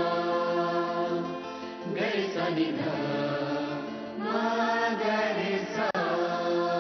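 Background music: a sung melody over long held notes.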